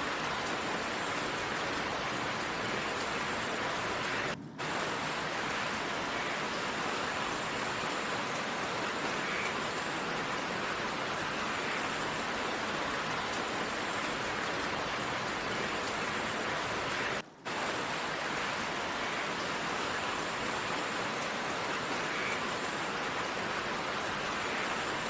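Steady downpour of heavy rain, an even hiss with no thunder, which cuts out for an instant twice, about four seconds in and again near seventeen seconds.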